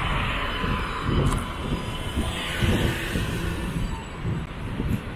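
A moving vehicle running steadily: a low rumble with irregular low knocks and an even hiss of running noise.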